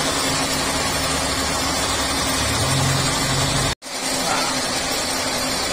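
Steady running of shop machinery, an even mechanical noise with a low hum. It cuts out completely for an instant a little under four seconds in, then carries on.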